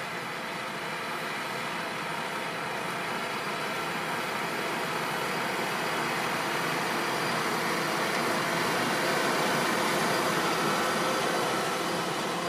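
Fendt 724 Vario tractor's six-cylinder diesel running steadily under load while it pulls a five-furrow Lemken plough, growing louder as it comes closer and starting to fade near the end.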